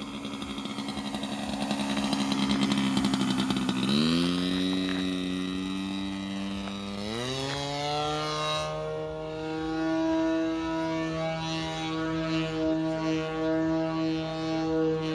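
Engine of an RC aerobatic model plane, loudest as it passes close, then rising sharply in pitch in two steps, about four and seven seconds in, as the throttle is opened for a vertical climb. It then holds a steady higher pitch while the plane climbs and hangs nose-up.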